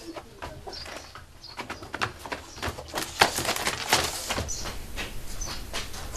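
Scuffling footsteps and knocks from several people moving together, with short high chirps, like small birds, recurring throughout.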